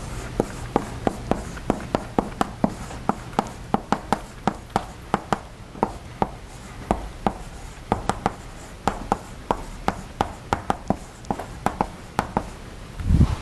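Chalk on a blackboard as equations are written: a quick run of sharp taps and short scratches, about three a second. There is a low thump near the end.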